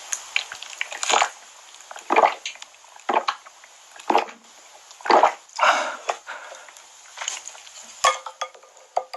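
Close-miked eating sounds: crunchy bites and chews coming about once a second.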